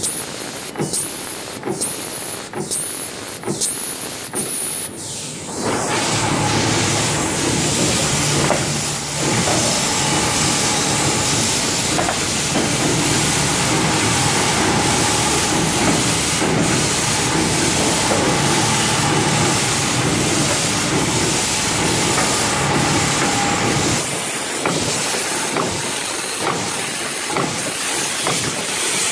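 Commutator welding machine at work: a regular run of short hissing pulses, less than a second apart, as it welds the commutator bars one after another. After about five seconds this gives way to a steady workshop hiss with a low machine hum, and scattered clicks near the end.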